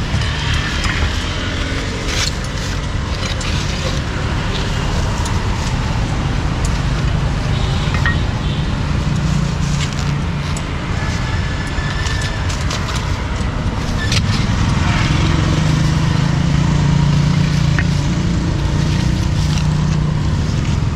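Steady roadside traffic noise with motor vehicle engines running. A low engine hum grows louder about two-thirds of the way in, and a few sharp knocks and clicks sound over it.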